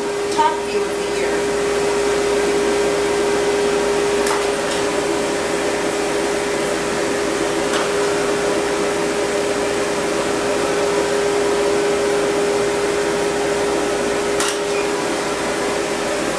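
Pet grooming dryer blowing steadily, a constant rush of air with a steady hum, while a poodle's coat is fluff-dried and brushed out. Two brief clicks, a few seconds in and near the end.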